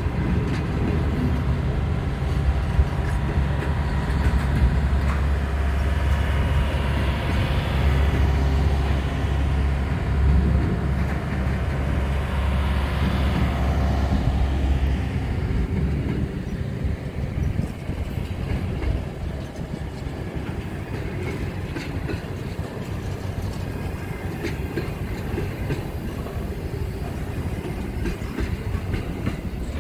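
Freight train wagons rolling past with a continuous rail rumble and wheel rattle. A heavy low rumble fades out about halfway through, leaving the lighter clatter of the passing wagons.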